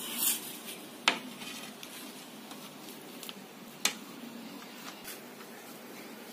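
A few sharp clicks and knocks of a plate and plastic tray as chapathi rolls are set down and arranged on the plate, the loudest about a second in and just before four seconds.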